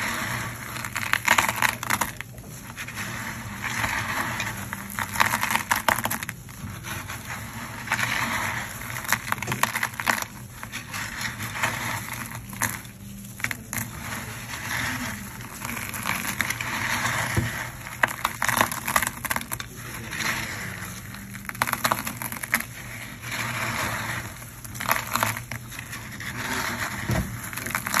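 Broken ceramic tile shards clattering and scraping against each other as a gloved hand scoops, stirs and drops handfuls of them back into a wooden tray. It comes in crackling waves about every two seconds.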